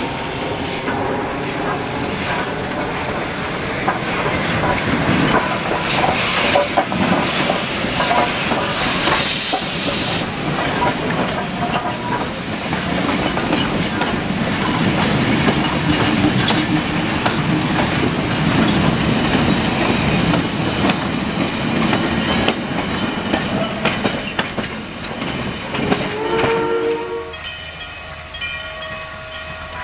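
A steam-hauled train of freight cars rolling past close by: steady clatter of wheels over the rails, with a brief hiss about nine seconds in and a thin wheel squeal soon after. Near the end there is a short whistle-like tone, and then the sound drops to a quieter passage.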